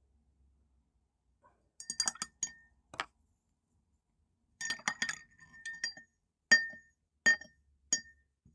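A paintbrush clinking against a glass of rinse water: a series of light, sharp taps, each ringing briefly. They come in a short cluster about two seconds in and a longer run from about four and a half seconds, with the loudest tap near the end.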